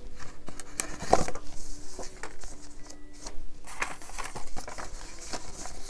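Paper bills, prop money, rustling as they are pulled from a cash envelope and fanned out and counted by hand, in a string of short uneven rustles and flicks.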